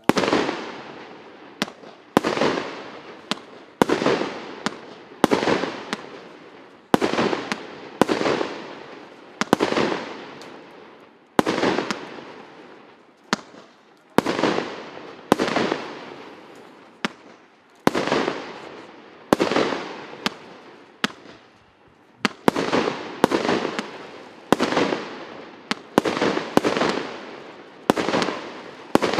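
Consumer fireworks cake of 160 shots in mixed 0.8-, 1- and 1.25-inch tubes firing shot after shot, about one sharp bang a second. Each bang trails off in echo, with a few lighter cracks between them.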